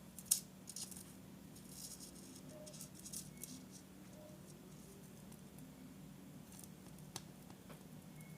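Hands handling and placing small craft pieces: faint, scattered clicks and light rustles, the sharpest about a third of a second in, over a steady low hum.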